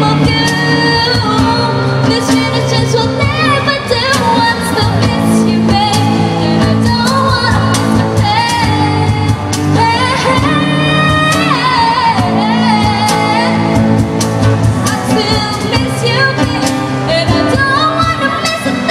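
Live acoustic pop performance played through a PA: a woman singing into a microphone over strummed acoustic guitar and percussion, with the echo of a large hall.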